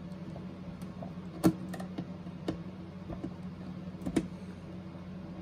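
Screwdriver turning a screw into the plastic back panel of a boombox: a few sharp clicks and taps of metal on plastic, the loudest about a second and a half in and another near the end, over a steady low hum.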